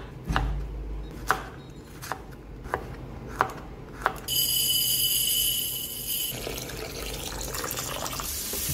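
Knife slicing a tomato and then garlic on a wooden cutting board: six sharp taps of the blade on the board over the first four seconds. After a steady hiss with a high ringing tone, water runs over rice in a glass bowl.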